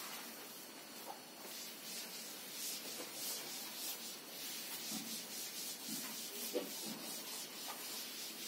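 A blackboard duster rubbing across a chalkboard in quick repeated strokes, wiping chalk off the board.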